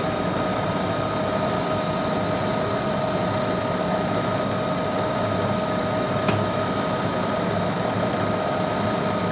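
Standard Modern 1660-C lathe running under power: a steady hum from its 7.5 hp drive motor and headstock gearing, with a steady whine on top. A single short click about six seconds in.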